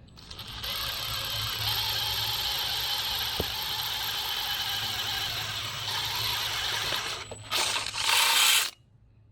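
Power drill running steadily for about seven seconds as it bores through an aluminum ladder beam, then a louder burst of about a second before it stops.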